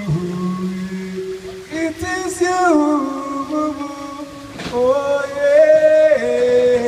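A man's voice singing long, wordless held notes into a microphone, sliding smoothly from one pitch to the next.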